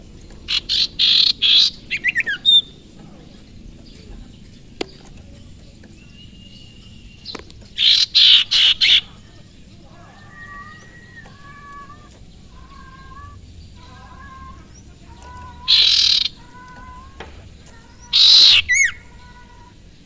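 Caged sirtu songbird calling: four loud bursts of rapid chatter, and from about halfway through, a run of soft short whistled notes between them.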